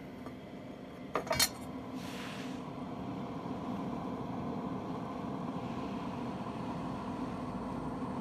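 Silma Sonik 8 Standard 8mm magnetic sound projector running with a steady whirring hum. A couple of sharp metallic clicks about a second in.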